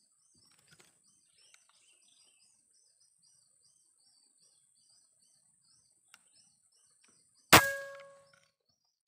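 A single shot from a Jawara Mouser OD32 PCP air rifle near the end: a sharp crack followed by a metallic ring that fades in about a second. Faint, fast, high chirping and a steady high tone lie underneath.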